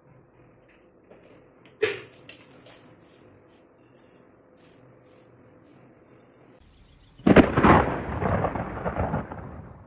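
Mustard seeds crackling and spluttering in hot oil in a frying pan, starting suddenly about seven seconds in and thinning out toward the end. A single sharp knock sounds near two seconds in.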